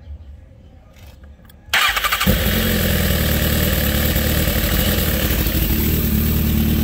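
2008 Suzuki GSX-R1000's inline-four engine turned over by the electric starter a little under two seconds in. It catches almost at once and settles into a steady idle, firing right away on newly fitted high-performance coil packs.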